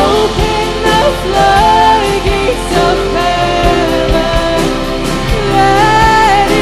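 Live worship band playing a slow song: a singer holds long, gliding notes over electric guitars, keyboard, bass and drums.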